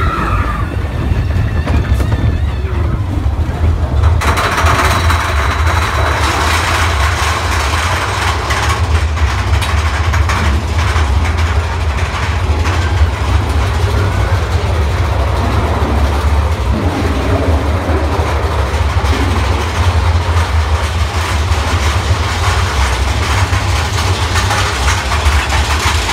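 Big Thunder Mountain Railroad mine-train roller coaster running along its track, heard from a seat on the train: a steady low rumble of the cars, joined about four seconds in by a louder rushing rattle that carries on.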